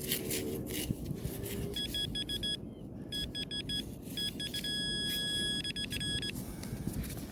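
Handheld metal-detecting pinpointer beeping in quick pulses, then giving a steady tone for nearly two seconds before cutting off, as it closes in on a shallow iron target in the sand. Steady low wind-and-surf noise underneath.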